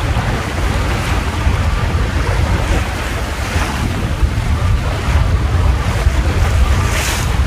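Wind buffeting the microphone with a heavy, steady rumble over the rush of water along the hull of a small sailboat running through waves. A brief hissing splash of water comes near the end.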